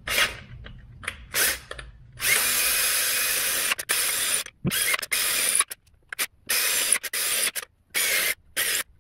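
Cordless drill drilling out a stripped bolt hole in an aluminium cylinder head, clearing the damaged thread for a helicoil. The trigger is pulsed: a few short bursts, one longer run about two seconds in, then a string of quick on-off bursts.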